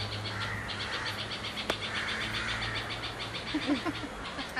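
Insects chirping in a rapid, even pulse of about nine chirps a second, over a steady low hum, with a brief low call near the end.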